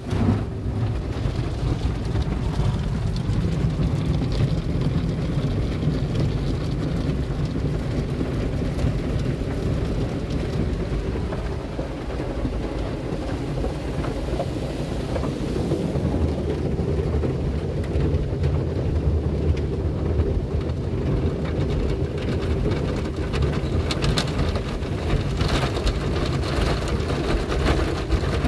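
Automatic cloth car wash heard from inside the car: cloth brushes scrubbing and slapping over the body and windows while water spray pelts the glass. It starts suddenly and stays loud and steady, like heavy rain on the roof.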